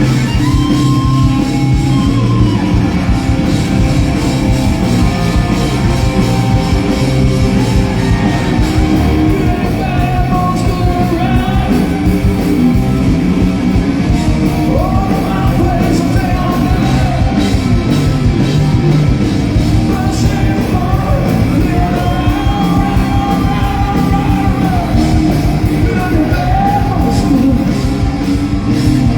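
Live rock band playing loudly with a lead singer.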